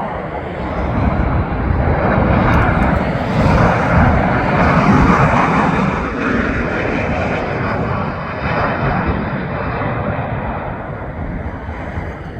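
Boeing 737 MAX 8 jet passing low overhead on its landing approach, the noise of its CFM LEAP-1B turbofans swelling to a peak about four to five seconds in and then slowly fading.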